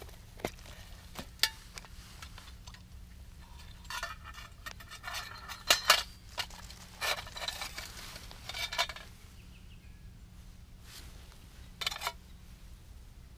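Hands handling small camping gear: scattered clicks, scrapes and light metal clinks, the loudest cluster about six seconds in.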